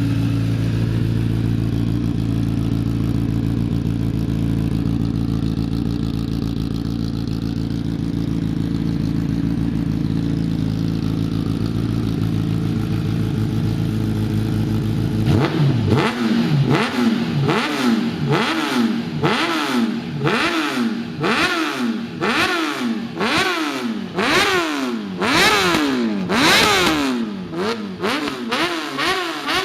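Kawasaki ZX-10R inline-four engine through a Hurricane aftermarket slip-on exhaust, idling steadily at first. About halfway through it is blipped repeatedly, revving up and dropping back roughly once a second.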